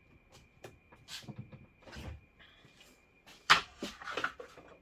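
Handling noises: a string of clicks and knocks as objects are picked up and set down, the loudest a sharp knock about three and a half seconds in, with a faint steady high whine beneath.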